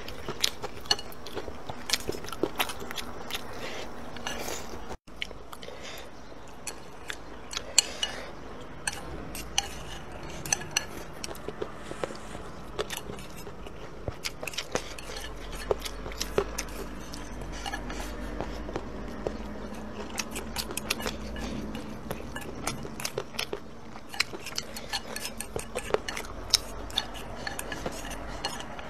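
Mealtime eating sounds: frequent sharp clicks of utensils against bowls and plates, over chewing and gnawing on spicy duck feet and pork ribs. The sound drops out for an instant about five seconds in.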